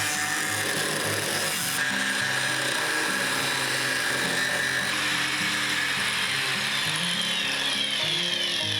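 A power tool cutting into the rusty sheet-metal door frame of the Iveco Daily van: a steady harsh cutting noise with a whine. Late on, a whine falls in pitch.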